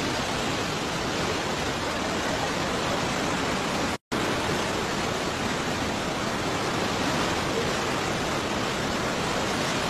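Fast-flowing muddy floodwater rushing, a steady, even noise of water, broken by a brief dropout to silence about four seconds in.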